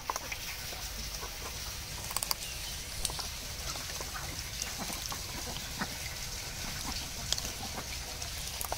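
Live chitol (knifefish) fry shifting and slapping wet against each other and the hands that scoop them in a tub of water, as scattered small clicks and slaps over a steady background noise.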